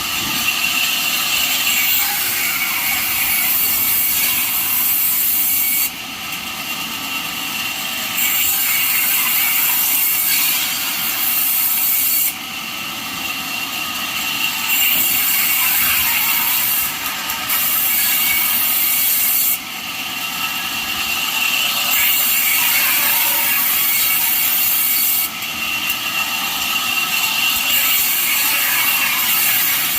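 Band sawmill blade cutting through jackfruit wood, a steady loud sawing hiss. The loudness drops and jumps abruptly every few seconds.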